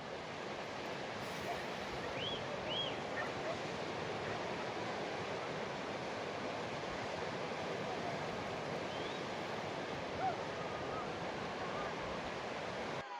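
Steady outdoor rushing noise, with two short bird chirps about two seconds in and another faint one later.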